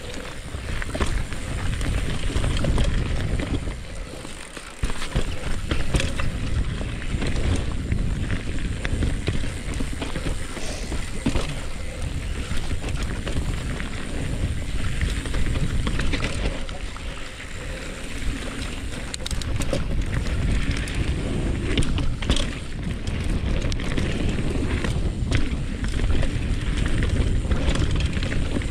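Wind buffeting the microphone: an irregular low rumble with scattered clicks.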